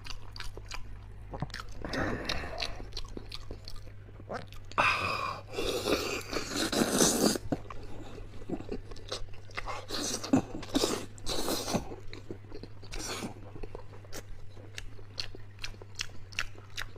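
Close-up chewing and gnawing on soft stewed beef hoof and tendon: many quick wet smacks and clicks of the mouth, with a couple of longer hissing, sucking stretches about five seconds in and again around ten seconds. A steady low hum runs underneath.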